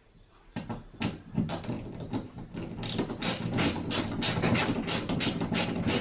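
Ratcheting hand screwdriver clicking as a screw is driven into a wall anchor by hand. The clicks start sparse about half a second in, then settle into a steady run of about four a second.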